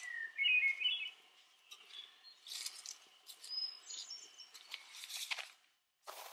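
Birds singing, with a stepped run of whistled notes near the start and higher whistles around the middle, over the sharp crackles and clicks of a small wood campfire being tended.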